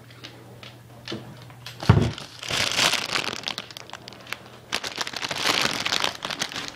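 A thump about two seconds in, then a plastic bag of green grapes crinkling loudly as it is handled, in two spells.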